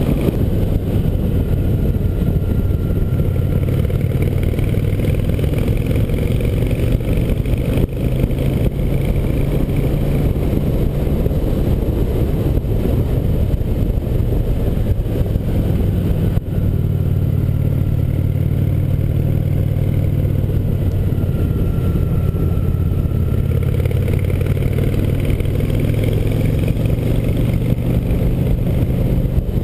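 Cruiser motorcycle engine running steadily at road speed, with wind and road noise over it. The engine note breaks briefly about halfway through, then carries on.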